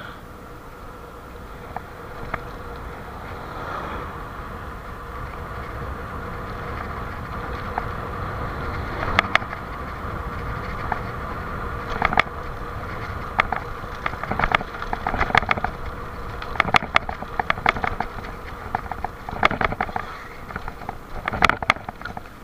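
Gravel bike running fast downhill on a rough road. A steady rushing noise with a thin whine grows louder over the first several seconds. From about nine seconds in, clusters of rattling clicks and knocks come as the bike hits bumps.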